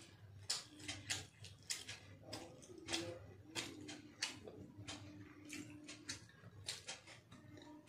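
Close-up eating sounds of a man chewing a mouthful of biryani: wet mouth clicks and lip smacks at an irregular pace, one or two a second.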